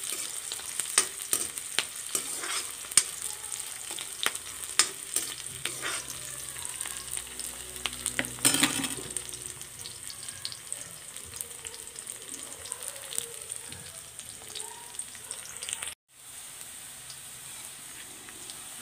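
Sliced onions sizzling in hot oil in a metal kadai, with a metal ladle clicking and scraping against the pan as they are stirred over the first several seconds. Near the end the sound cuts out for an instant, then the sizzling carries on.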